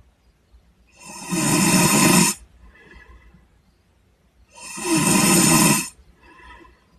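A sleeping person snoring loudly: two long snores of about a second and a half each, roughly three and a half seconds apart, each followed by a fainter breath out.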